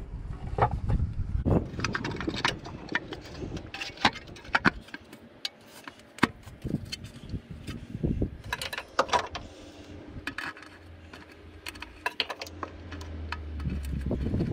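Air cleaner housing being handled and seated back over a Nissan K10 Micra's carburettor: a run of irregular clicks, knocks and rattles. A low rumble builds near the end.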